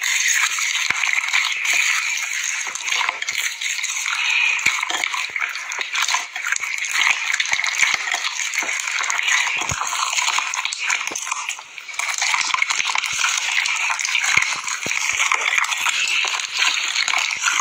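Hands kneading and squeezing slime mixed with foam beads (floam): a dense, steady stream of crunchy crackles and squishes, with a brief lull about two-thirds of the way through.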